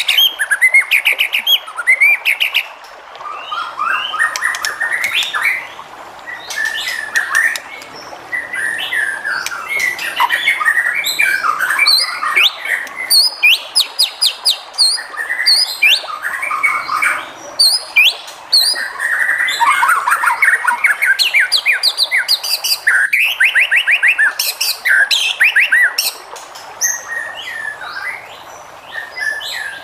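White-rumped shama (murai batu) singing a long, varied song of whistled phrases, fast trills and harsh chattering notes, with only brief pauses between phrases.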